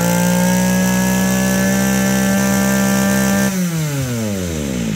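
Honda UMK22 two-stroke brush cutter engine held at high revs with a steady, high-pitched note, then the throttle is let off about three and a half seconds in and the revs fall back to idle.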